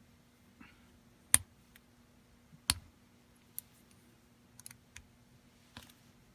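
Two sharp clicks, about a second and a half in and again near three seconds, then a few lighter ticks: small tools and metal parts handled while loosening screws on an FX Impact air rifle's rail.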